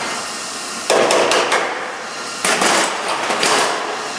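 MIG welder crackling in two bursts of about a second and a half each, filling plug-weld holes in the sheet metal with wire on a short arc.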